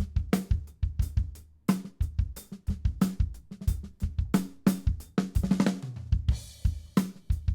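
Acoustic drum kit playing a groove: kick drum, snare backbeat and hi-hat. About five seconds in there is a quick run of strokes, then a cymbal rings briefly before the beat goes on.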